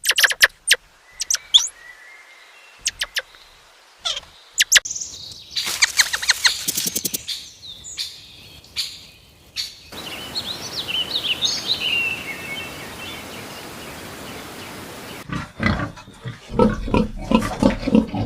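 A run of short animal calls and clicks, with high chirping calls about ten seconds in.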